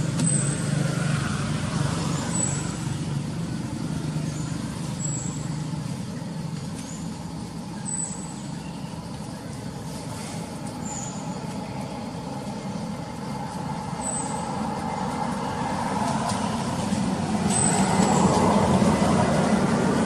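Motor vehicle engine running steadily, growing louder near the end. A short high chirp repeats every two seconds or so over it.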